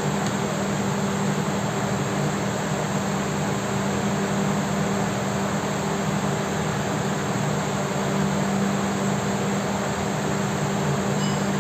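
Handheld angle grinder running steadily, a constant motor hum under a broad hiss.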